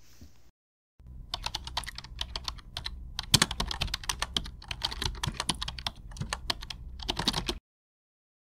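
Rapid, irregular clicking like typing on a computer keyboard, over a low hum, starting about a second in and cutting off suddenly near the end.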